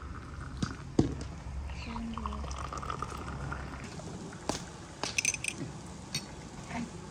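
Hot tea pouring from a glass teapot into small tea glasses for the first few seconds, followed by a few light clinks of spoon and glass.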